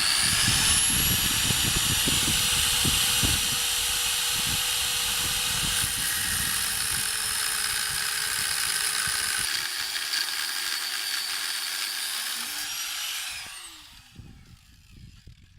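High-speed power cutting tool cutting through a metal engine-bay bracket: the motor spins up at the start, runs steadily with a hissing cutting noise for about thirteen seconds, dipping slightly in pitch partway through, then winds down and stops.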